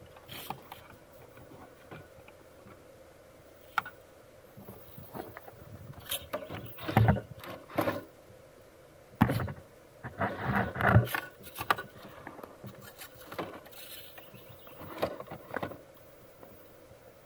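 A 9imod 60 kg steering servo in a Traxxas TRX-4 Defender RC crawler whirring in short, irregular bursts as it forces the bound front wheels left and right against rocks, with tyres scraping and knocking on the stone. Its gear train is a little noisy. The loudest bursts come about seven seconds in and again around ten to eleven seconds.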